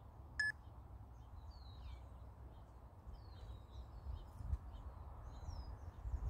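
Small birds chirping faintly over a low outdoor rumble, with one short electronic beep about half a second in.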